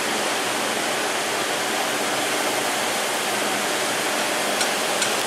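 Steady, even hiss of shop background noise, with two faint light clicks near the end.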